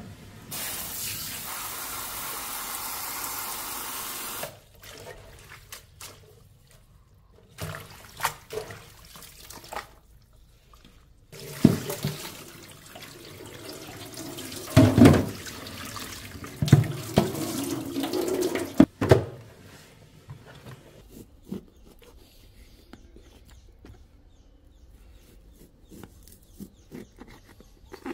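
Kitchen sink tap running for a few seconds, then knocks and clatter of things being handled. About halfway through, water runs again with louder clunks, as of items being rinsed under the tap.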